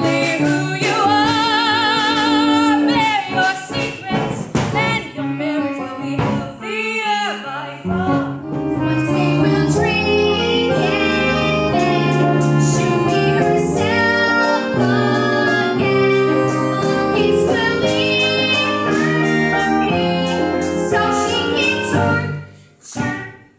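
Musical-theatre singing with accompaniment: a young woman holds a long note with strong vibrato, then after a short break a boy sings a solo line over the band.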